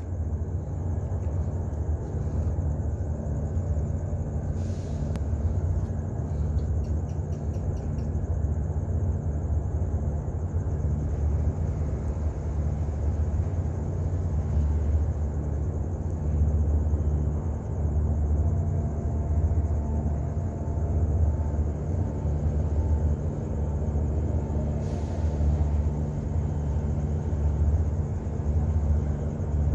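Steady low outdoor rumble with no pitch or rhythm, with a thin steady high hiss above it and a few faint clicks.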